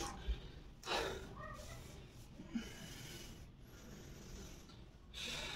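A man breathing hard after a set of push-ups, catching his breath in a few heavy breaths spaced about two seconds apart.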